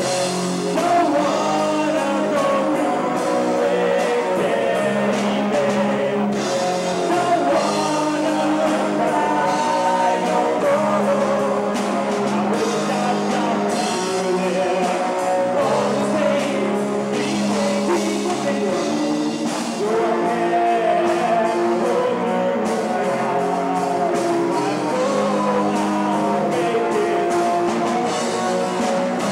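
A rock band playing live: electric guitar, bass guitar and drum kit, with a steady bass line under a bending lead melody.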